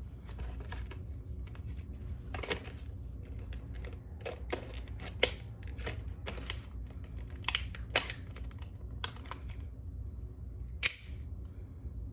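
Packaging of a lens cleaning pen being handled and opened by hand: irregular clicks and rustles, with a few louder sharp clicks.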